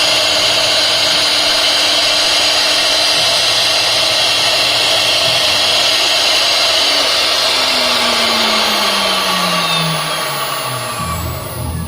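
CNC router spindle running at speed, with a steady high whine over a rush of air. From about nine seconds in it winds down, its pitch falling as it slows.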